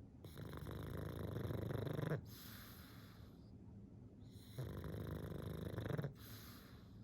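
Pug snoring in sleep: two loud snores, each about two seconds long, building up and cutting off sharply, each followed by a softer breath.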